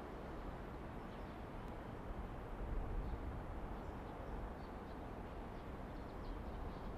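Faint, steady rumble of a distant EF66 electric locomotive and its freight train approaching, with small birds chirping briefly now and then.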